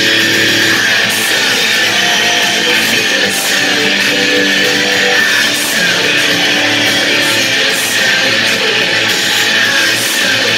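Distorted electric guitar strumming a steady rock chord part, loud and unbroken, with short bright high hits coming about every two seconds.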